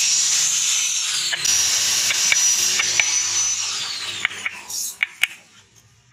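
Steel knife blade scraping and shaving a round wooden knife handle: a steady rasping scrape with a thin high squeal that slides down in pitch, then a few sharp clicks as the strokes die away about five seconds in.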